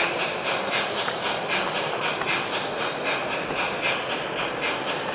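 Large-scale model of a German class 44 steam locomotive running with steam rising from its chimney, its exhaust chuffing in an even rhythm of about three puffs a second over a steady hiss.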